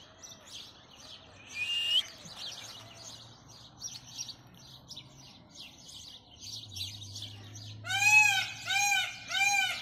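Small birds chirping over and over, with a short rising whistle about two seconds in. Near the end come four loud, evenly spaced calls from an animal, the loudest sound here.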